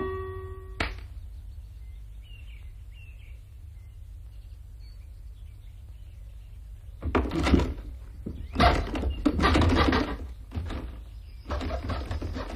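A single click about a second in and a few faint bird chirps. From about seven seconds, a run of irregular rough scraping and knocking noises.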